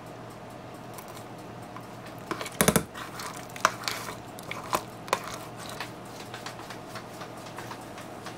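Ladle stirring a pot of soup and knocking against the pot: a quick cluster of clattering knocks about two and a half seconds in, then a few lighter clinks, over a steady background hum.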